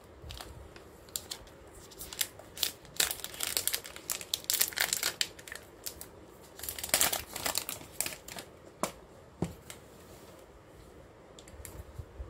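Thin plastic shrink-wrap being torn and peeled off a phone's retail box: irregular crinkling and crackling that thins out near the end.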